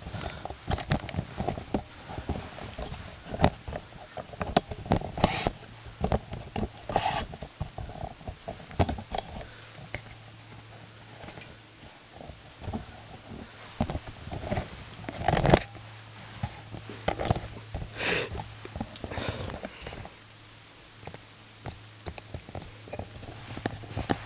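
Footsteps through forest leaf litter and undergrowth: irregular crunches and snapping twigs, with a few louder knocks.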